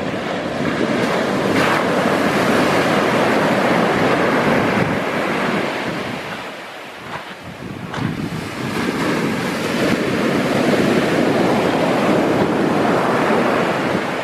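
Heavy sea surf: big waves breaking and washing in, loud and then easing about halfway through before building again, with wind on the microphone.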